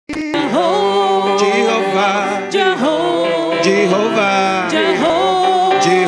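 Gospel praise music: voices singing a praise song with live band accompaniment, the singers holding long, sliding notes.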